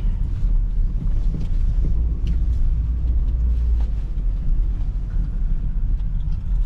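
Small car driving, a steady low rumble of engine and road noise with a few light knocks.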